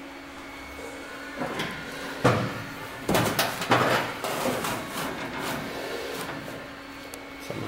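Knocks and short scrapes of a racing fuel cell being set down and shifted into place in the bare metal rear of a car body. The loudest knock comes a little past two seconds in, followed by a cluster of scraping knocks. A steady hum runs behind.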